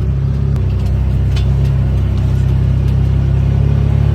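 Motor vehicle engine running steadily as it drives, a low drone.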